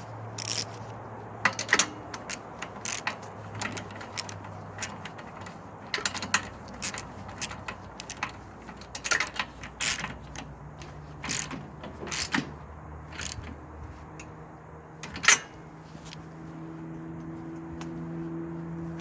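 Metal hand tools and parts clicking and clinking in irregular knocks during work on a snow blower, with the loudest knock near the end, over a steady low hum.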